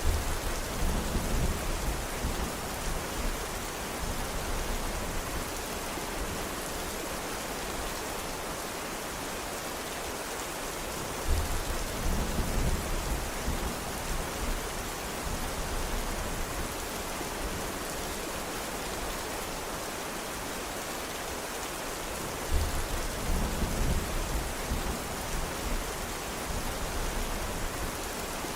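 Steady, even rain, with a low rumble of thunder rolling in three times, about eleven seconds apart, each lasting a few seconds.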